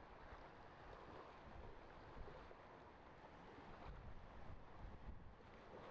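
Faint steady wind buffeting the microphone, with small waves washing gently on the shore.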